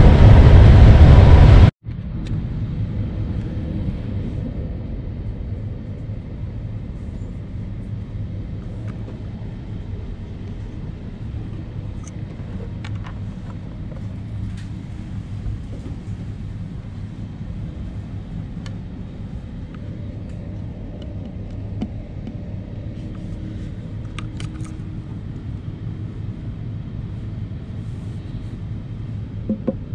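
Steady low rumble of a moving train heard from inside the passenger coach, with a few faint clicks and knocks. It is preceded by a loud rushing noise that cuts off suddenly about two seconds in.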